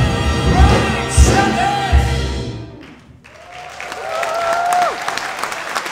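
Big band with vocalists singing the final notes of a song, ending about two and a half seconds in. After a short pause the audience starts applauding, with one long shouted cheer over the clapping.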